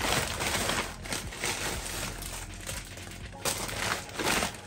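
Plastic carrier bag rustling as items are handled, with a few light clicks and knocks of hard plastic packaging.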